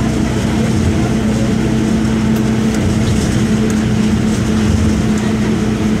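Mercedes-Benz OM-924 LA four-cylinder inline diesel engine of an OF-1722M bus running at a steady speed, an even drone that holds one pitch throughout.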